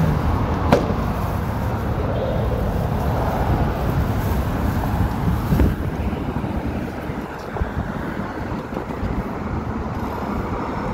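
City street traffic noise: a steady rumble of passing vehicles, with two short sharp knocks, about a second in and a little past the middle.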